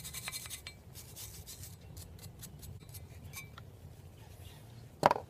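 A dusty brake caliper bracket being handled and cleaned: light scrapes and small metal clinks, thick in the first second or two and sparser after. A single sharp knock about five seconds in is the loudest sound.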